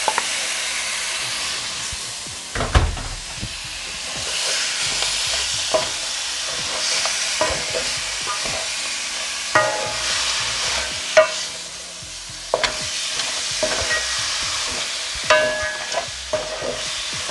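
Chunks of mutton sizzling as they fry in a hot pot, with a wooden spoon knocking and scraping against the metal as they are stirred. A heavier dull thump about three seconds in.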